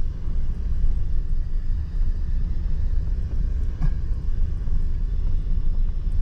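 Pickup truck driving slowly on a gravel road, heard from inside the cab: a steady low rumble of engine and tyres.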